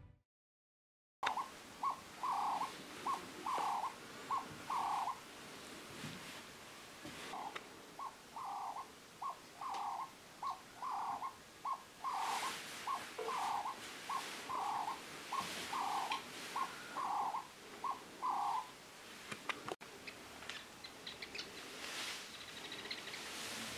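A dove cooing in repeated phrases of soft, low notes, some short and some drawn out, with a pause of a couple of seconds after the first phrase. Faint high chirps of small birds come in near the end.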